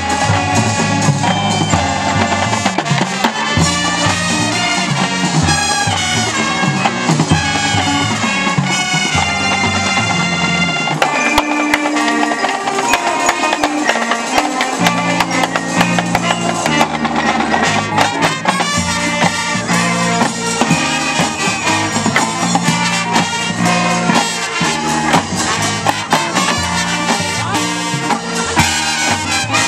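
Marching band playing its field show: brass and drums together, loud and dense. The low bass parts fall away for a few seconds near the middle, then come back in.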